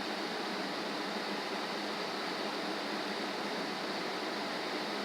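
Steady, even hiss with no knocks or clicks in it, like a fan or air conditioner running or recording noise.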